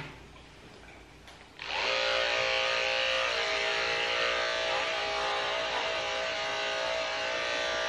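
Electric dog grooming clippers switch on about two seconds in and run with a steady buzz while shaving a border collie's coat.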